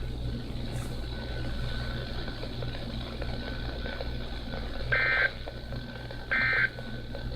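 NOAA Weather Radio receiver with a low hum and hiss, then, about five seconds in, two short raspy data bursts about a second and a half apart: the EAS/SAME end-of-message code that closes the required weekly test broadcast.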